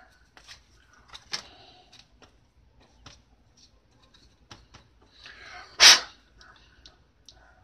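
Handling noise: small clicks and taps of a multimeter's plastic case and circuit board being fingered, with one much louder brief knock and rustle about six seconds in.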